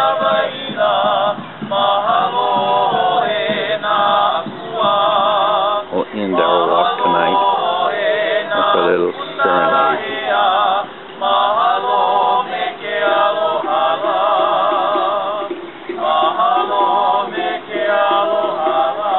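A mixed group of men and women singing a song together in harmony, in long phrases with short breaks between them.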